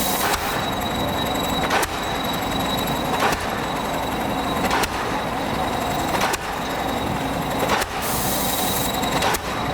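Pile hammer on an excavator-mounted pile driver striking a pile in a steady rhythm, a sharp blow about every second and a half, over the continuous running of the machinery.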